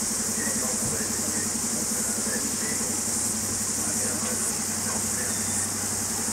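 Heavy diesel engine idling with a fast, even throb, over a constant high hiss.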